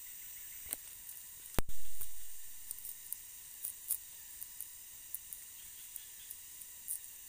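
Machete work: one loud sharp strike about one and a half seconds in, then light, irregular scraping clicks as the machete blade shaves a thin stick. A steady high hiss underlies it all.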